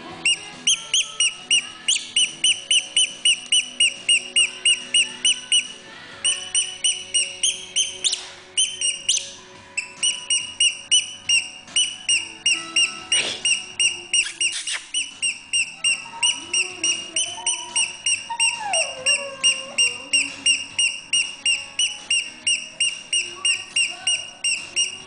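Plush monkey squeaky toy squeezed rapidly and repeatedly, giving high-pitched squeaks about two to three a second, with short breaks twice early on. In the second half a chihuahua's faint wavering howl, falling in pitch, joins the squeaking.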